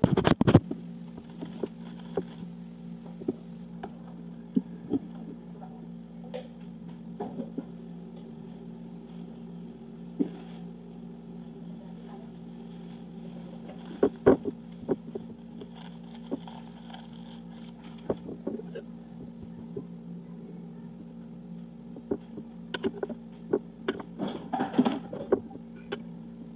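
Aluminium foil crinkling and clinking on a plate as baked potatoes are unwrapped and handled. A steady low appliance hum runs underneath. The crackles come in scattered clusters, thickest about halfway through and again near the end.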